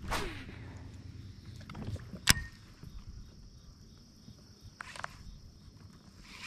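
A baitcasting rod and reel being cast: a quick whir from the spinning spool that falls steeply in pitch as it slows, then a sharp click a little over two seconds in and a softer rustle near five seconds.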